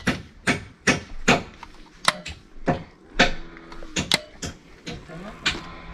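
A run of sharp knocks and clicks, about two a second and unevenly spaced, from hand tools working sheet-metal flashing during roof leak-proofing.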